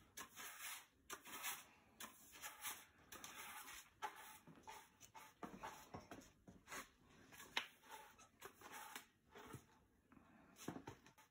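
Near silence, with faint, irregular clicks and rustles of handling.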